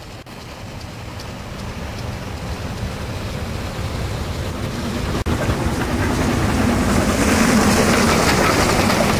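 Narrow-gauge steam locomotive and its train approaching, the rumble of the train growing steadily louder, with a brief break about five seconds in.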